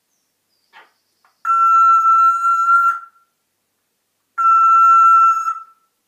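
African grey parrot whistling two long, steady notes at one unchanging pitch, each held for over a second, with a pause of about a second and a half between them, like an electronic beep. A faint short chirp comes just before.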